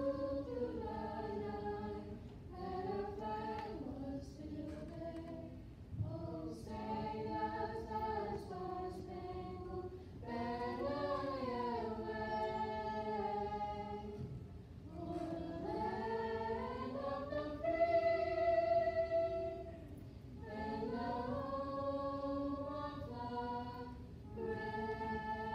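A woman singing solo and unaccompanied: slow, held phrases that glide between notes, with short breaks for breath between them.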